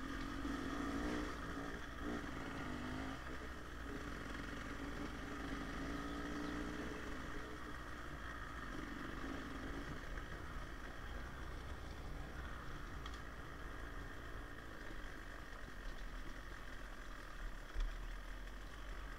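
KTM two-stroke dirt bike engine running on a trail ride, its note swelling near the start and again around the middle over a steady low rumble. A single sharp knock near the end.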